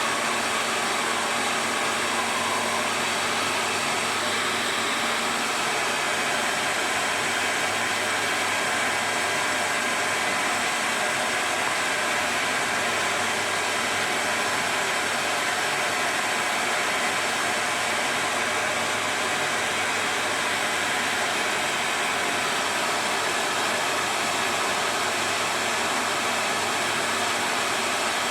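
Hair dryer blowing steadily on one setting, heating a plastic bottle to shrink it tight over a juicer part.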